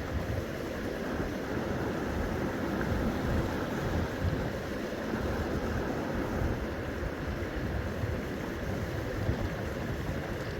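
Gusty wind buffeting the microphone: a low, rumbling rush that rises and falls without a break.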